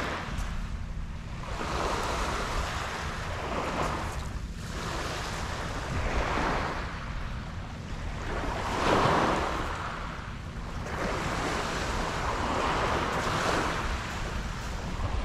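Sea waves washing onto the shore, the hiss swelling and fading every few seconds, with wind rumbling on the microphone.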